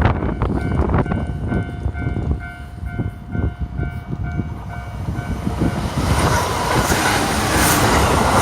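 A train passing over a level crossing, its wheels clacking over the rail joints, while the crossing's warning bell dings in an even repeated pattern of about two strikes a second. The bell stops about five and a half seconds in, and the train's rumble and hiss then grow louder.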